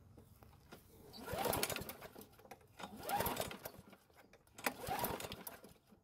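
Poulan Pro push mower's engine being pull-started by its recoil rope, three pulls each cranking it with a brief rising-then-falling whirr, about a second and a half apart. The engine turns over but never fires: it will not start.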